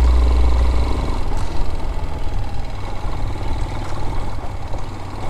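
Vitacci Raven 250's 229cc air-cooled OHV single-cylinder engine running as the bike is ridden along, with an uneven low note.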